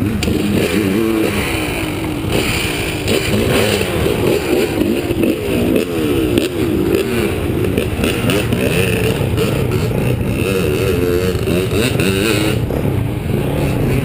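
Dirt bike engines running and revving, their pitch rising and falling unevenly.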